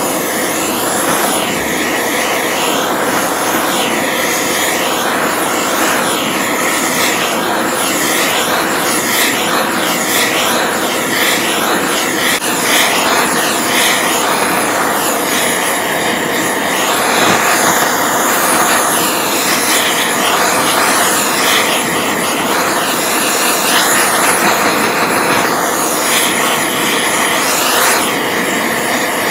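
Handheld gas torch burning with a steady, loud hiss. Its tone wavers about once a second as the flame is moved around the crankcase bearing boss to heat and expand the case.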